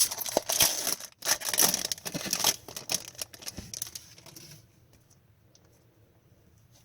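Foil hockey-card pack wrapper being torn open and crinkled, in loud rustling bursts that stop about four and a half seconds in.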